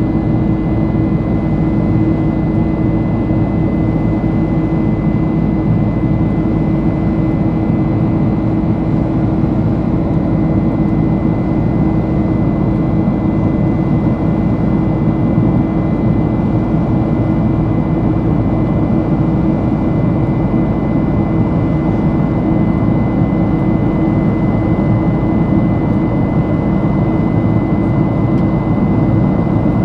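GE CF6 turbofan engines of a Boeing 767-300 heard from inside the cabin: a steady, unchanging roar with a low hum and a thin high whine running through it.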